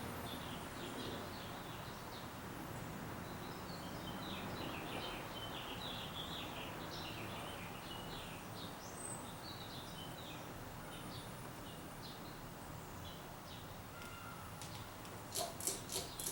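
Ceiling fan running with a steady whir, with small birds chirping throughout in the background. Near the end comes a quick run of about six sharp clicks.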